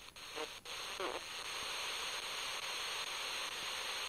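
Tecsun portable radio's speaker tuned across the FM band: a few brief snatches of a station's talk break up and cut out in the first second, then steady static hiss between stations.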